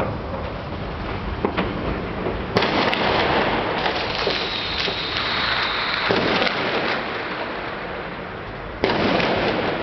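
Fireworks bursting and crackling overhead, with a dense sizzling crackle throughout. Two sudden louder volleys come about two and a half seconds in and near the end.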